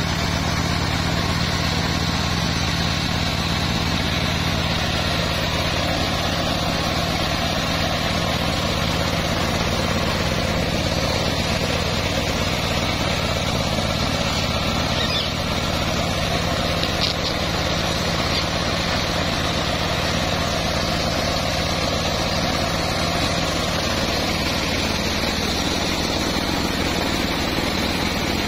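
The engine of a homemade bandsaw sawmill running steadily at a constant speed, an even hum with no cutting heard.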